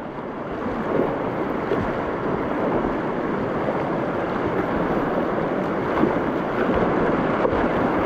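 River rapids rushing, a steady wash of moving water that swells over the first second and then holds even.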